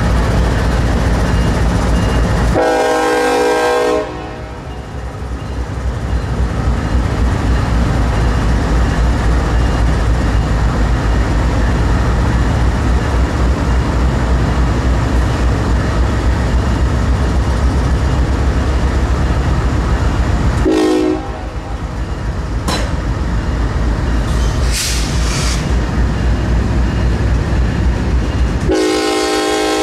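Norfolk Southern diesel locomotive air horn sounding over the steady rumble of the train. There is a long blast a few seconds in, a short one about two-thirds of the way through, and another long blast near the end.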